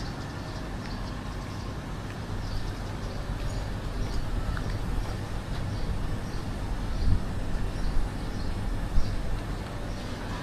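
Outdoor street ambience: a steady low rumble, like distant traffic, with faint high chirps repeating through it and a few short knocks about seven and nine seconds in.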